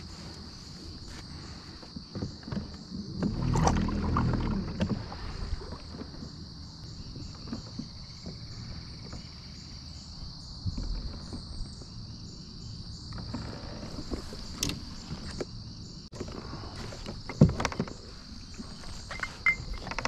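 Steady high-pitched chorus of insects chirring in riverside grass, with scattered clicks and knocks from fishing gear handled on a plastic kayak hull. A louder low rumble comes about four seconds in, and there is a sharp knock near the end.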